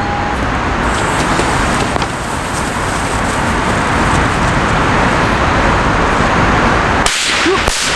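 A lit 'water duck' (水鴛鴦) firecracker fizzing on concrete: a steady, dense hiss that runs for about seven seconds and cuts off near the end.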